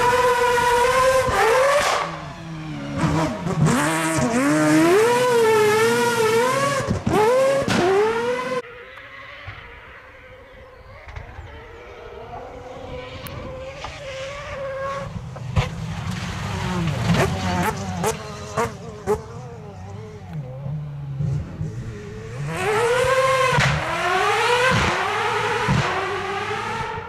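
Rivet Mazda rally car's engine revving hard, its pitch rising and falling with each throttle lift and gear change. It drops to a fainter, distant engine note from about a third of the way in, with a few sharp cracks, then revs loudly again near the end.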